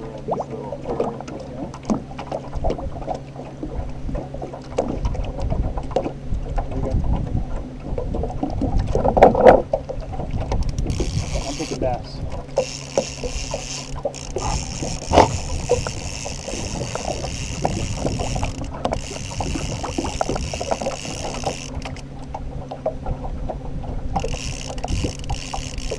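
Spinning fishing reel being cranked to bring in a hooked fish on a trolling rod, its gears clicking in quick ticks, over the steady low hum of the boat's outboard motor. A louder clatter comes about nine seconds in, and a hiss comes and goes in the second half.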